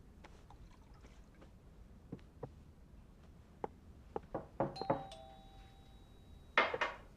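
Light clicks and knocks of handling, then a two-note chime, a high note followed by a slightly lower one, ringing out over about a second and a half, like a cabin doorbell. A short rushing sound comes near the end.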